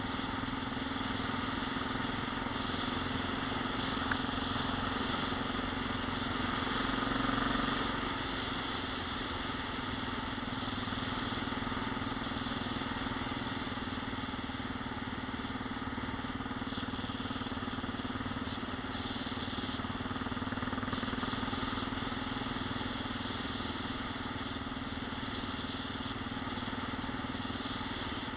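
Motorcycle engine running steadily while riding at a constant speed, swelling briefly about seven seconds in.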